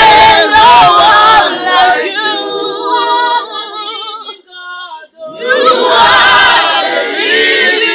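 A group of voices singing together without instruments, a worship song sung a cappella. The singing drops away for a moment a little after halfway, then comes back in full.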